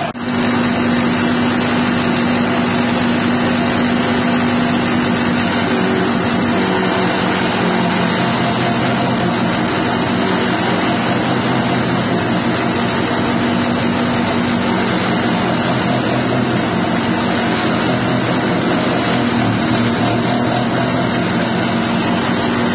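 Grass chopper driven by a 6.5 hp petrol engine, running loud and steady at constant speed while grass stalks are fed in and shredded.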